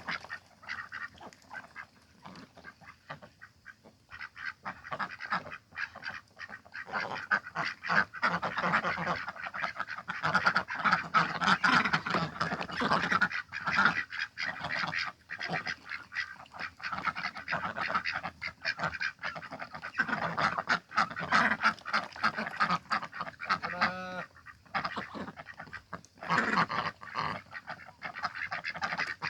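A flock of domestic ducks quacking, many short calls overlapping. The calls are sparse for the first few seconds, then turn into near-continuous clamouring for the rest.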